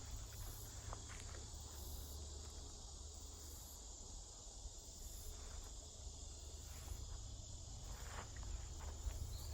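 Steady chirring of insects with a faint pulsing repeat, over a low rumble, with a few faint clicks or light steps.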